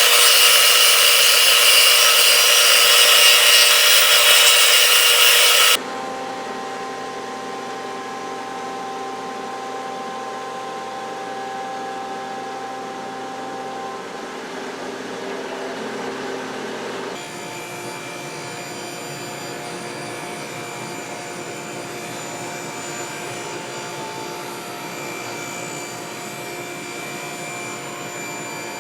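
A power saw cutting wood, loud for about six seconds and then cut off abruptly, leaving a quieter steady hum with a few held tones that changes again about two-thirds of the way through.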